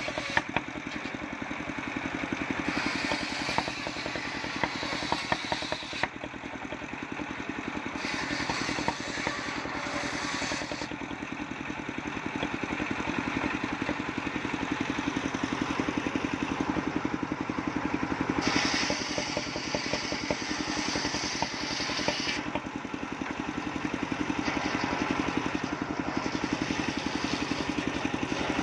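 Large mill circular saw running steadily and ripping a mahogany log. In two stretches, about a third and about two-thirds of the way through, the cutting noise grows brighter and hissier, with a few sharp wooden knocks.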